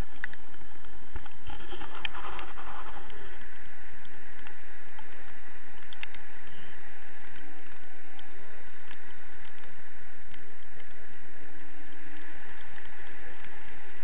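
Steady wind noise from the airflow of paraglider flight rushing over an action camera's microphone, with scattered crackles and clicks.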